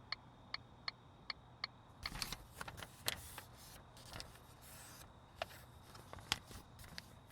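Car-interior sound effects. First comes a short run of faint beeping ticks, about three a second. Then a stretch of rustling with small clicks and knocks, as licence and registration papers are handed over.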